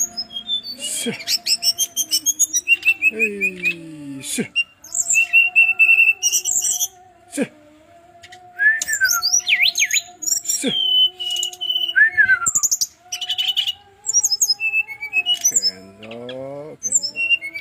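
Brown-chested jungle flycatcher singing a long, varied song of quick chirps, high whistles, trills and downward-sliding notes, broken by sharp clicking notes. The song is rich in 'isian', phrases borrowed from other birds.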